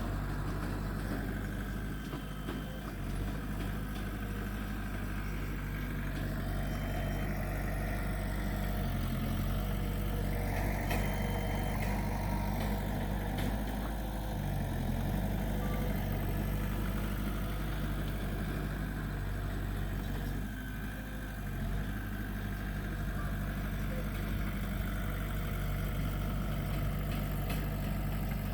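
Heavy diesel engine of earthmoving machinery running steadily, its low drone shifting briefly under changing load a few times.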